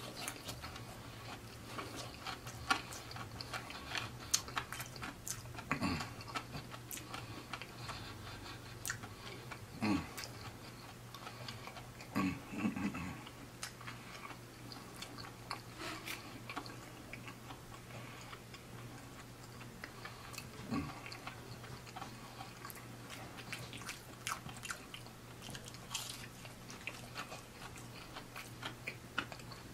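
Close-miked chewing of crispy fried seafood: irregular crunches and wet mouth clicks, with a few louder, deeper mouth sounds now and then. A faint steady low hum runs underneath.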